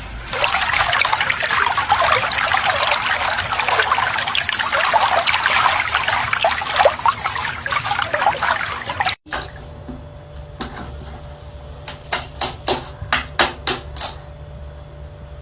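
Water rushing and splashing for about nine seconds, cut off suddenly. Then a quieter stretch with a steady low hum and a series of sharp taps or knocks.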